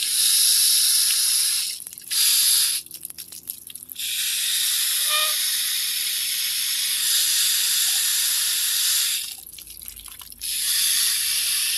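Fine water spray misting over potted succulents: a steady hiss that stops briefly three times as the spray is let off and started again.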